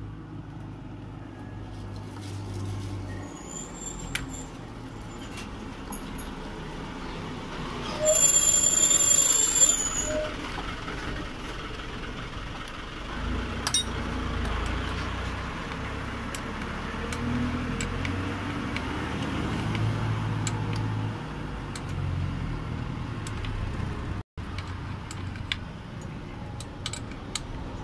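Passing road traffic, with a loud high-pitched squeal lasting about two seconds near eight seconds in, over scattered small metallic clicks of steel wire being twisted by hand.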